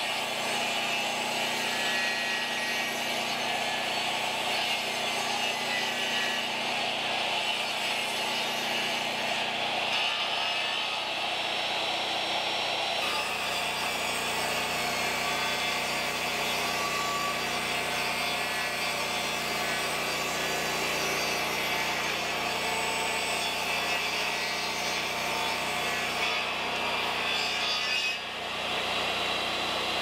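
Jobsite table saw running and ripping long wooden planks lengthwise, a steady machine whine mixed with the blade cutting through wood, dipping briefly near the end.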